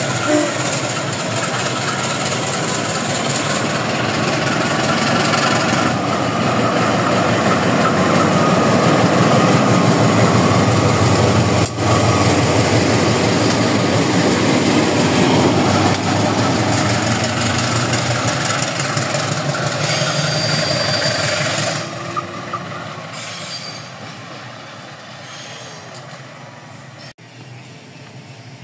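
KAI CC 201 diesel-electric locomotive running light past at close range, its diesel engine and wheels on the rails loudest as the cab goes by. The sound drops sharply about two-thirds of the way through and fades as the locomotive moves away.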